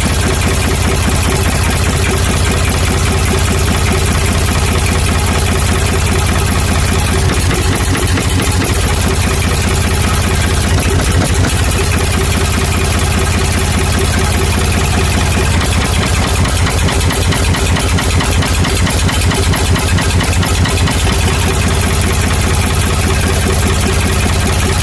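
Ford 555 backhoe's diesel engine running at idle, its fuel system just bled of air after the air-bound injector pump had kept it from starting. The run is steady throughout, with a rougher, more pulsing stretch in the middle.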